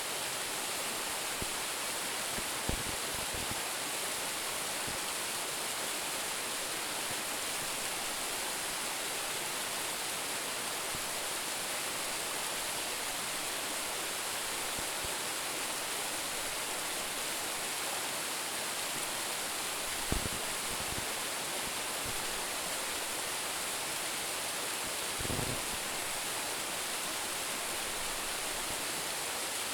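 Steady rush of water falling about 10 m at Roumon Falls, a branching waterfall. A few brief, faint low thumps come through it.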